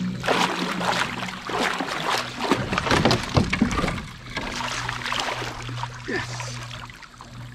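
Water splashing and sloshing around a kayak in a shallow river, in irregular bursts that are busiest around the middle, over a steady low hum.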